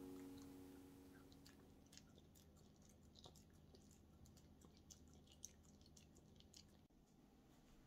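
Faint, irregular clicks and smacks of a small dog chewing chunky wet food from a dish, while acoustic guitar music fades out over the first second or so.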